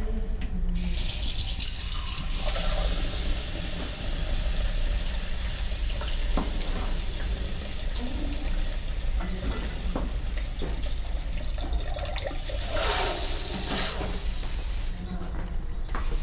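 Kitchen tap running water into a stainless steel sink, a steady hiss that starts about a second in and grows louder for a moment near the end, with a few light clinks of teacups being handled.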